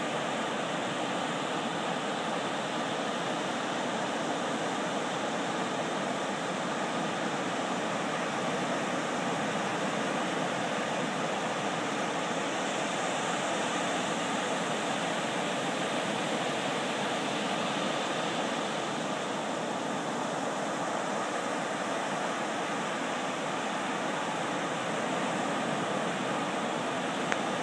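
Ocean surf breaking and washing up the shore: a steady, unbroken rush of waves.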